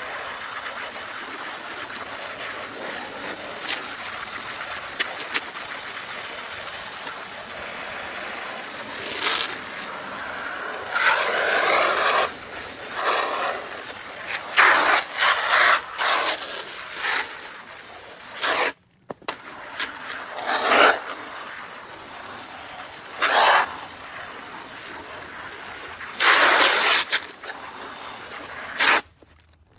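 Garden hose nozzle on its jet setting spraying water in a steady hiss, with louder, uneven surges of splashing from about ten seconds in as the jet washes out canister filter parts. It drops out briefly partway through and cuts off suddenly near the end.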